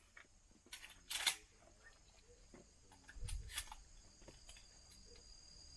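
A few sharp clicks and knocks, the loudest a bit over a second in, then a short dull thump with more clicks around three seconds in, over a faint steady high insect drone.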